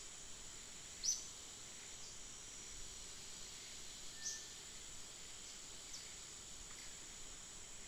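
Outdoor ambience: a steady high insect drone with a few short, falling bird chirps, the loudest about a second in and about four seconds in.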